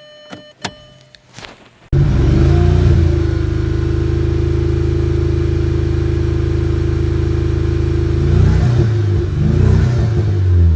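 A few clicks, then about two seconds in the Audi A3's 1.8 TSI four-cylinder turbo petrol engine comes in suddenly, running at a steady idle, its speed wavering unevenly near the end. The engine has an idle misfire that the owner thinks is down to failed spark plugs.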